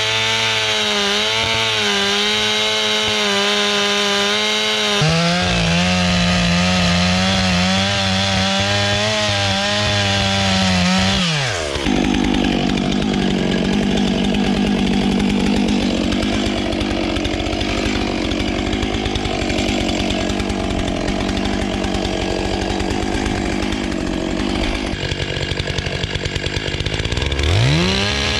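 Stihl MS 661 C-M two-stroke chainsaw running at full throttle, cutting into the trunk of a hard beech tree. Its high steady note drops sharply about twelve seconds in and turns rougher for a long stretch, then rises quickly back to full revs near the end.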